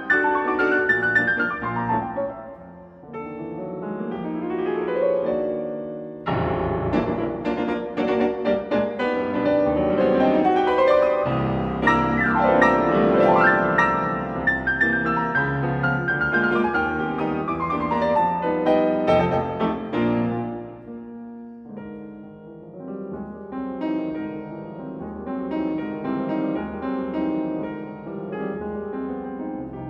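Steinway concert grand piano played solo in classical style: rapid rising runs, then a loud, full passage from about six seconds in, easing to quieter playing after about twenty seconds.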